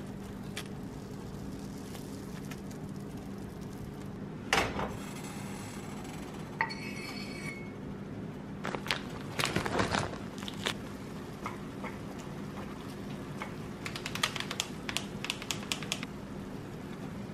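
Kitchen cooking sounds over a steady low hum: scattered clinks and taps of food and utensils going into a frying pan, one clink ringing briefly about six and a half seconds in, a cluster of knocks around ten seconds in, and a run of light clicks near the end.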